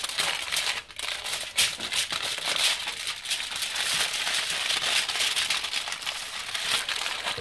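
Aluminium foil crinkling continuously as hands fold and wrap it around a log of dough.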